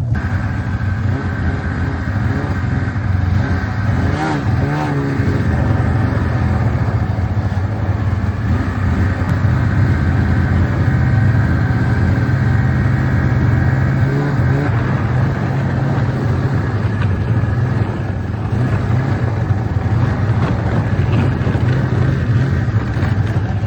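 Ski-Doo snowmobile engine running loud and steady.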